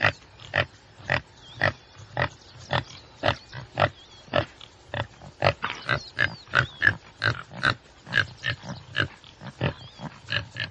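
Tsessebe (topi, Damaliscus lunatus) giving a long series of short, sharp grunts, about two a second at first, quickening and growing irregular after about five seconds. Faint bird chirps sound behind them.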